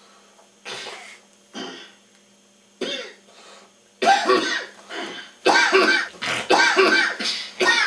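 A person's fit of exaggerated, loud sneezing and coughing. A few short, fainter bursts come first, then from about four seconds in the bursts grow louder and come close together, each under a second long.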